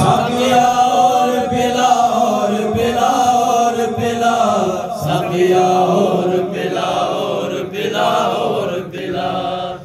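A man's voice chanting a manqabat, devotional praise of Ali, into a microphone. The phrases are long and held, and no instruments are heard.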